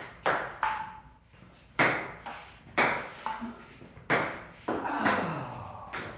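Table tennis rally: the ball clicking sharply off the paddles and bouncing on the table, about one to two hits a second.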